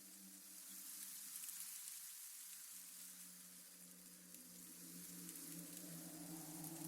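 Faint spooky ambience: a low, steady droning hum under a soft crackling hiss, the drone swelling slightly near the end.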